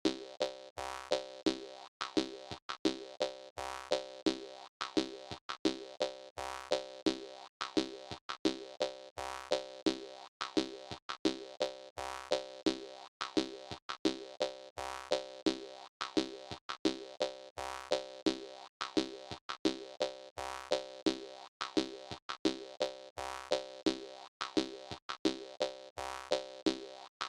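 Jaw harp music: a jaw harp plucked over and over in a steady, danceable rhythm, each twang starting sharply and ringing briefly.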